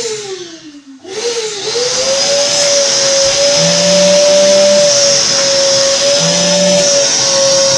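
Vacuum cleaner motor winding down, then switched back on about a second in: it spins up with a rising whine and settles into a steady run with a high-pitched hiss.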